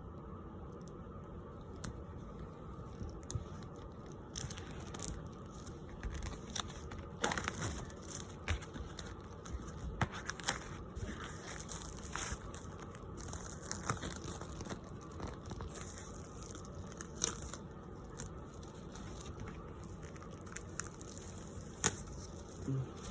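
Irregular rustling, crinkling and small clicks, like things being handled, over a steady low hum.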